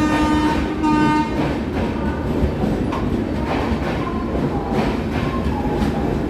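Train horn sounding one steady note that breaks off briefly and ends about a second in. Then comes the steady rumble and clatter of train wheels on the rails, with irregular clicks and faint squeals as the train runs over the points onto another track.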